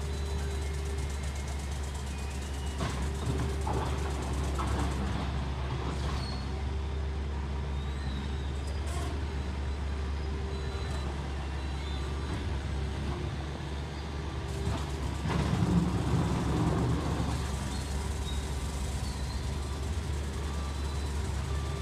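Diesel engine of a telehandler running steadily with a low hum, louder for a couple of seconds about two-thirds of the way through as the machine moves off, with a few clanks mixed in.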